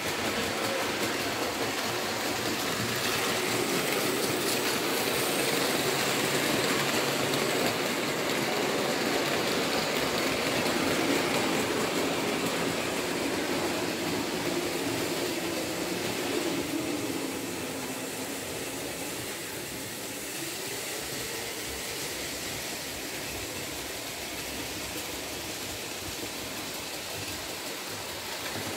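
Märklin model train running on metal track: a steady rolling rattle with a motor hum whose pitch dips about two-thirds of the way through and then rises again.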